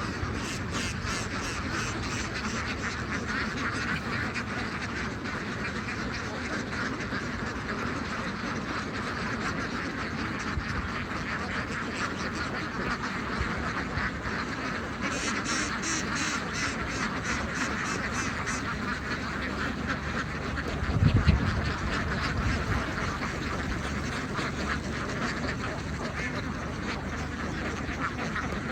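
A large flock of domestic ducks quacking continuously in a dense, overlapping chatter. A fast, high ticking runs for a few seconds midway, and a brief low thump stands out about two-thirds of the way through.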